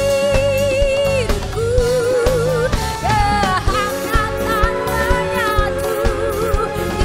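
Woman singing an Indonesian pop medley live, holding long notes with wide vibrato, backed by a string orchestra and band with drums and bass keeping a steady beat.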